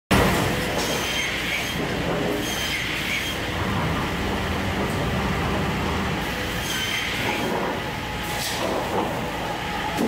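Cursal TRV 2000 roller-feed optimizing crosscut saw line running steadily, its feed rollers and conveyor working, with brief high squeals a few times and a couple of short sharp sounds near the end.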